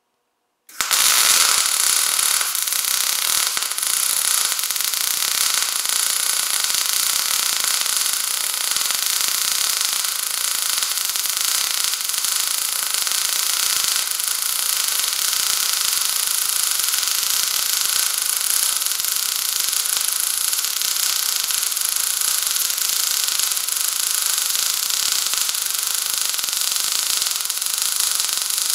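MIG welding arc on 0.035-inch wire striking about a second in, then burning in a steady, dense crackle as a vertical-up weld is run on plate.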